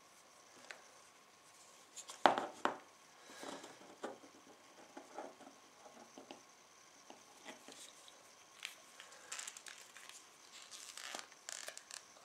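Scattered small clicks, scrapes and rustles of fingers working a cord and the plastic cap of a Water Wolf underwater camera housing, with two sharp clicks a little over two seconds in.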